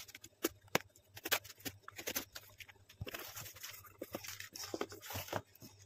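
Knife slitting the packing tape on a cardboard parcel with sharp clicks and scrapes, then cardboard flaps and a paper leaflet rustling from about three seconds in as the box is opened.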